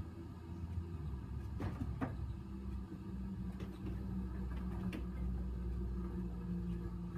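A cat's paws knocking twice on a wooden TV cabinet about two seconds in, with a fainter tap near five seconds, over a steady low hum.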